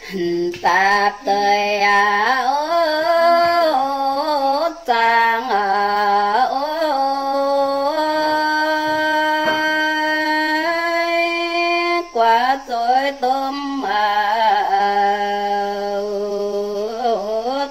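A woman singing a Red Dao folk song (hát lượn) unaccompanied, drawing out long held notes that bend slowly in pitch, in phrases with short breaths between them.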